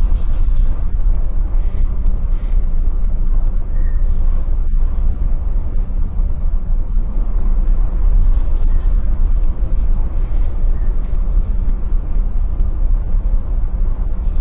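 Strong sea wind buffeting the microphone on a container ship's open deck: a loud, steady low rumble that swells and eases slightly.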